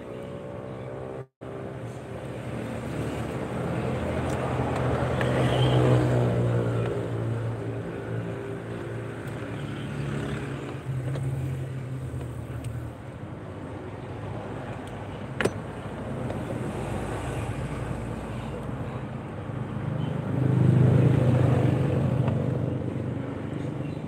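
Motor vehicles passing by, the traffic rumble swelling and fading twice, loudest about six seconds in and again about twenty-one seconds in. There is a single sharp click about fifteen seconds in.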